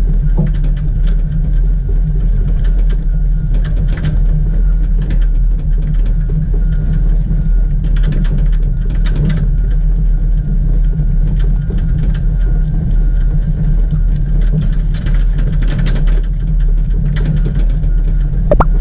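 Komatsu PC70 excavator's diesel engine running steadily as the machine travels, with irregular metallic clanks from the tracks. Right at the end there is a short rising squeal.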